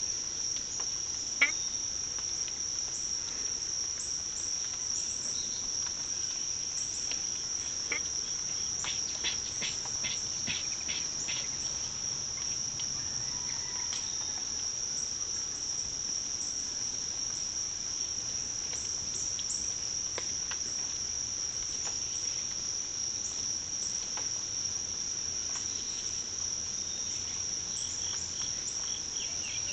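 Steady high-pitched insect trill, a continuous cricket-like chorus that does not let up. A single sharp click cuts in about a second and a half in, and a run of faint short ticks comes around the middle.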